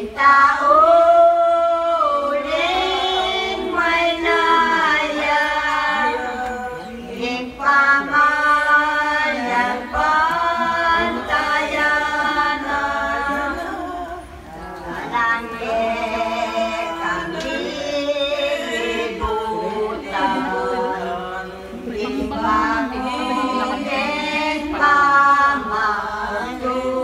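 A group of mostly women's voices singing a hymn together, unaccompanied.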